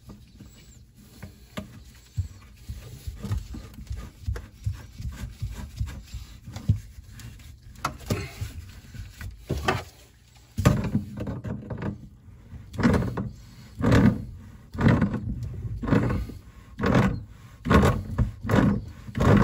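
Brass sink-drain slip nut being turned up by hand and then tightened with tongue-and-groove pliers. Faint scraping and clicks come first, then from about halfway a run of louder rubbing clunks about once a second as the pliers work the nut.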